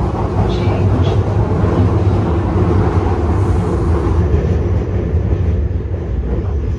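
Steady, loud rumble of a London Underground Piccadilly line train running between stations.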